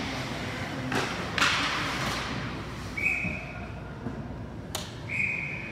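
Ice hockey play on a rink: a sharp stick-on-puck clack about a second in, then a short burst of scraping noise. Two short, steady, high blasts of a referee's whistle follow, about three and five seconds in, with another sharp clack between them; the whistle stops play.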